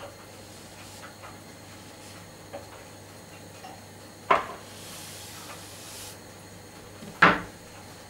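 A long wooden rolling pin knocking twice, about three seconds apart, the second knock louder, as rolled phyllo dough is slid off it onto a metal baking tray and the pin is set down; a soft rustle of the dough between the knocks and a few faint clicks.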